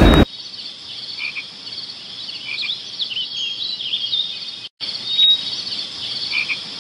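A chorus of small wild animals calling, a steady layer of high chirps and short rising and falling trills. The sound drops out for an instant about two-thirds of the way through.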